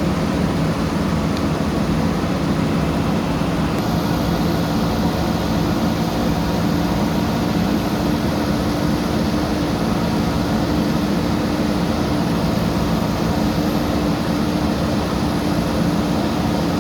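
Diesel engine of a JCB backhoe loader running steadily, a constant engine drone with no clear revving or pauses.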